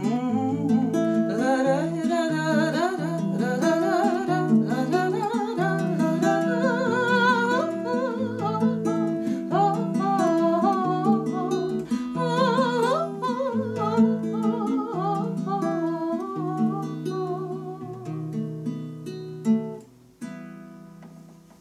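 Nylon-string classical guitar fingerpicked, with a woman's singing voice over it through roughly the first two-thirds. The guitar then plays on alone and dies away near the end as the song finishes.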